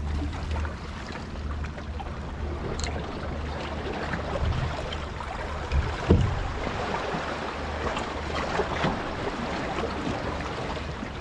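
Sea water washing against the rocks at the water's edge, with wind rumbling on the microphone. Two short dull knocks come about six seconds in.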